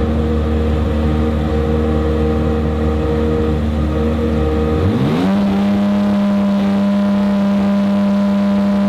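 BMW M4 GT3 race car's twin-turbo straight-six running steadily at a low idle, then revved quickly about five seconds in and held at a steady higher pitch.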